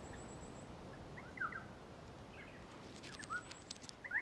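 Faint bird chirps: a few short rising-and-falling calls scattered through, with a quick run of sharp clicks a little after three seconds, over a soft even hiss.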